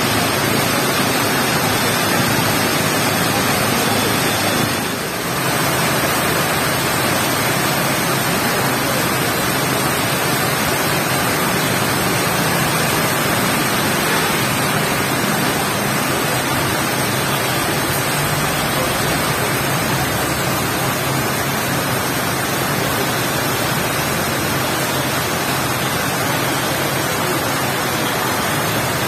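Heavy rain falling, a dense, steady hiss that dips briefly about five seconds in.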